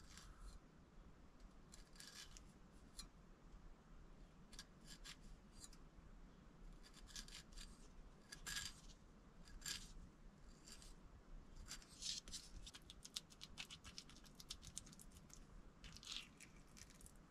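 Faint, intermittent scrapes and taps of a chef's knife slicing a ripe avocado against a cutting board, then avocado being scooped out and spread onto a bagel near the end.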